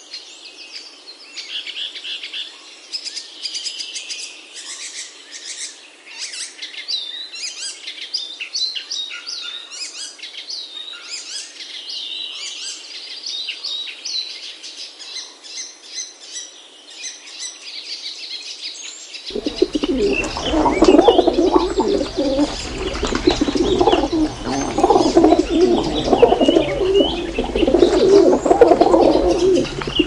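Small songbirds chirping and twittering in high, quick calls. About two thirds of the way through, the sound switches abruptly to louder, dense overlapping cooing of pigeons.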